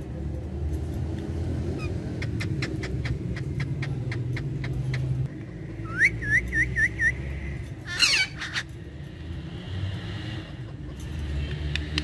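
Rose-ringed (Indian ringneck) parakeets calling: a run of quick clicks, then about six seconds in a string of five short rising chirps, and about two seconds later one harsh squawk. A low rumble runs underneath.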